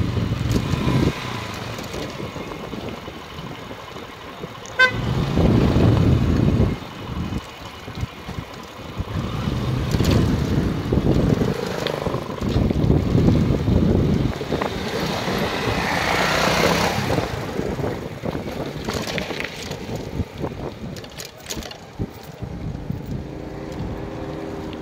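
Wind rushing over the microphone of a bicycle's handlebar-mounted camera while riding along a concrete road, rising and falling in uneven gusts. A sharp click comes about five seconds in, and a steady pitched tone starts near the end.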